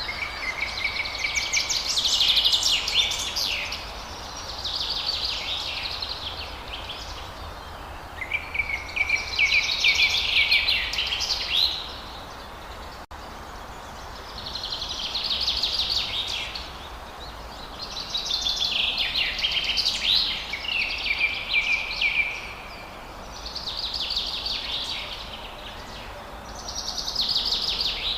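Forest songbird song: rapid trilled, twittering phrases of two to four seconds each, repeated about eight times with short pauses between, over a steady low background hum.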